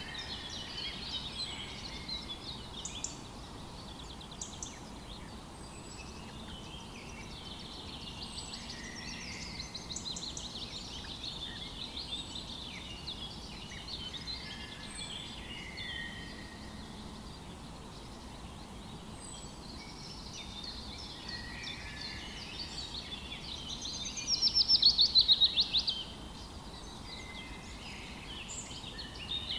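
A chorus of songbirds calling and singing over a faint, steady rush of river water. About 24 seconds in, one nearby bird gives a loud, rapid trill lasting about two seconds.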